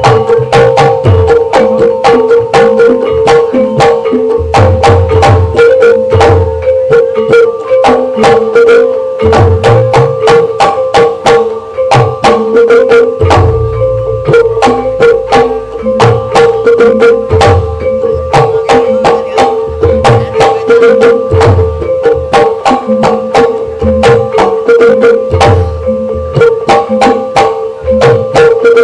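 Live ebeg accompaniment music: a Javanese gamelan-style ensemble with fast, dense drum and percussion strokes and recurring deep thumps over a steady held note.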